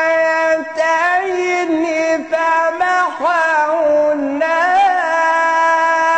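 A man's voice reciting the Quran in a drawn-out melodic style. He holds a long steady note, then weaves quick rising and falling ornaments for a few seconds, and settles back onto a long held note from about five seconds in.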